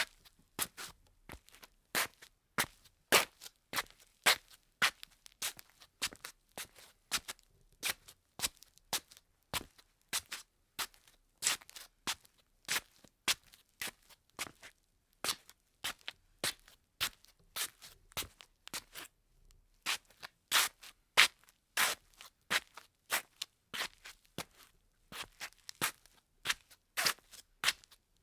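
Slippers shuffling on a tile floor: an irregular run of short, sharp scuffs, about two to three a second, with a brief pause about twenty seconds in.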